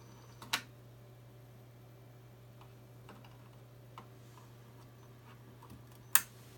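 Unifi AP AC Lite access point, powered over PoE, making irregular ticks over a steady low hum, with a sharp click about half a second in and a louder one near the end. The owner suspects the unit may be faulty.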